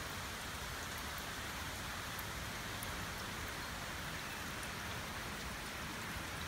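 Steady storm rain falling: an even hiss with a few faint drop ticks.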